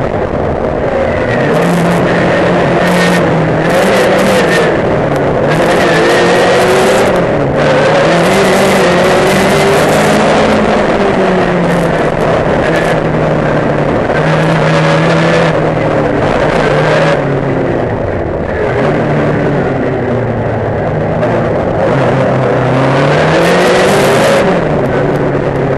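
Racing saloon car's engine heard from on board at race pace, its note climbing under acceleration and dropping back in steps for gear changes and braking into corners. Short bursts of rushing hiss come and go over the engine.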